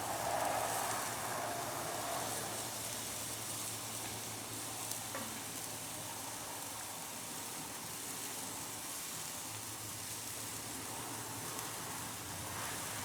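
Skirt steaks sizzling on the grate of a drum cooker right over a hot fire: a steady hiss, with one faint click about five seconds in.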